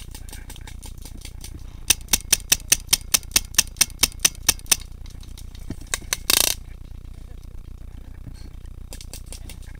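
A paintball marker firing a quick string of about a dozen shots, four or five a second, for about three seconds. A couple more shots follow, then a short, loud rush of noise, with faint scattered ticks of more distant fire underneath.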